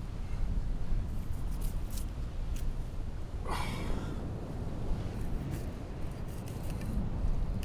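Steady low rumble of wind and surf, with light clicks and scrapes of a filleting knife cutting through a kingfish on rock. About three and a half seconds in comes a short rising cry.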